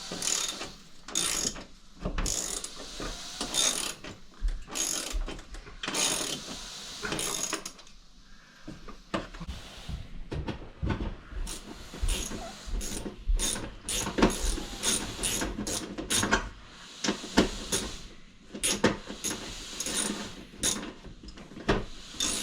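Ratchet wrench clicking in runs with short pauses as it drives the lag screws of a TV wall mount into the wall studs.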